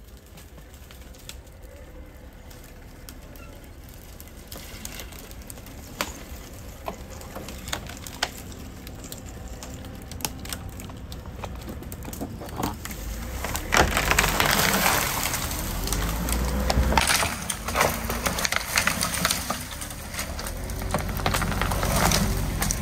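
SHERP ATV's diesel engine running as the machine pushes into snow-covered saplings, with branches and small trees cracking and snapping under it. Scattered snaps at first, then the engine and the crackle of breaking wood grow much louder a little past halfway.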